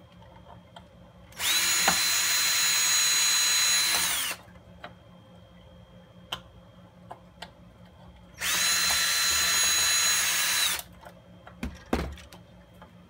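Ryobi cordless drill drilling out the head of a rivet in a thin sheet-metal case. It runs in two bursts of about two to three seconds each, a steady high whine that winds down at the end of each, with a few light clicks of metal between them.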